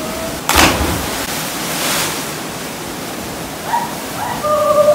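A person plunging feet-first into a deep pool from a cliff: one sharp splash about half a second in, then churning water. Near the end someone lets out a long held whoop.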